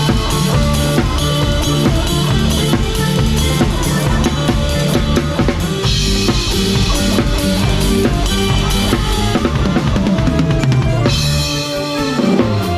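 A live band playing a cha-cha, with the drum kit up front: bass drum, snare rimshots and cymbals over a steady bass line. The cymbals get brighter about halfway through and again near the end.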